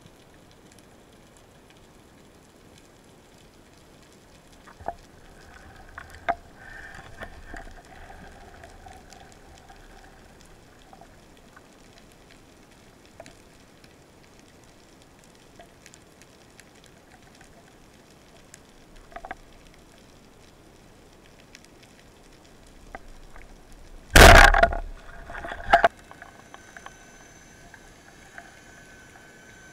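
Underwater seabed ambience picked up through a camera housing: a faint constant crackle with scattered sharp clicks. About twenty-four seconds in comes a loud rushing burst lasting about a second and a half, followed by a shorter one, and a faint steady whine continues after it.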